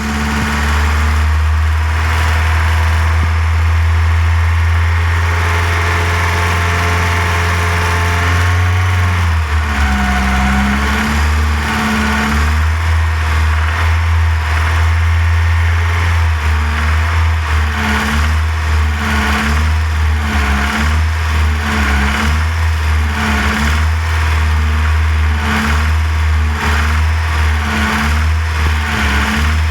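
Volkswagen Golf Mk1 GTI four-cylinder petrol engine running: a steady note for roughly the first nine seconds, then the note changes, and through the second half it rises and falls in a regular pulse about once a second.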